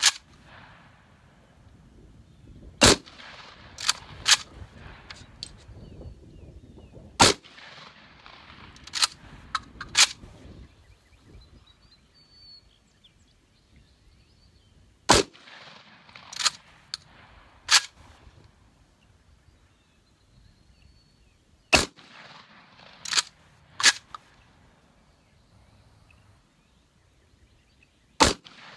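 Vepr-12 semi-automatic 12-gauge shotgun firing Suprema 00 buckshot, single shots several seconds apart, five reports in all. Each report is followed within a second or two by a few shorter sharp cracks.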